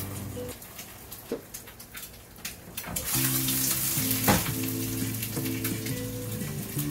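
Background music. About three seconds in, a crackling hiss starts under it, with one sharp metallic clink a little after.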